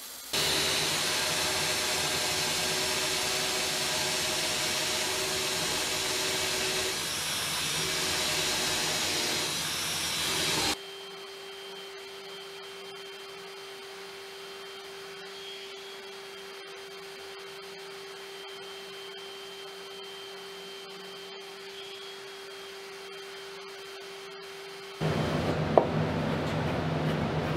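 A Porter-Cable bench belt sander runs as a solid mahogany table leg is sanded against its belt, making a loud steady rush. About eleven seconds in, it gives way to the quieter, steady hum of a handheld random orbital sander with a dust hose, sanding the leg smooth. Near the end a loud rushing noise starts again, with one sharp click.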